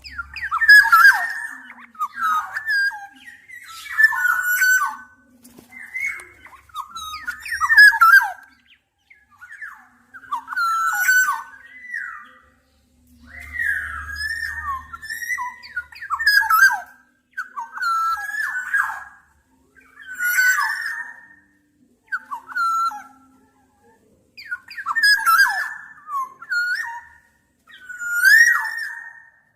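Black-naped oriole (Oriolus chinensis) giving short, fluty whistled phrases over and over, roughly one every two seconds, with short silences between.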